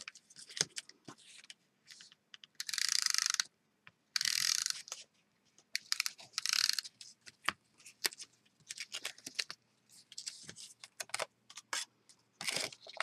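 Hand-held tape runner laying double-sided adhesive along card stock. Several short zipping strokes, each under a second, the clearest in the first seven seconds, with light clicks and paper rustling between.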